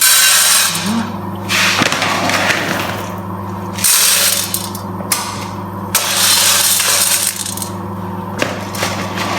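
Coffee beans rattling and scraping in a pan as they are stirred during roasting, in repeated strokes roughly every two seconds, over a steady low hum.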